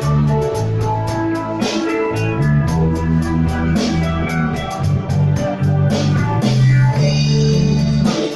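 Instrumental passage of a rock-style band song with no singing: guitar over a steady drum beat and a moving bass line.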